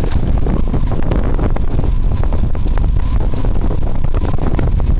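Motorcycle engine running at low road speed, with wind buffeting the microphone.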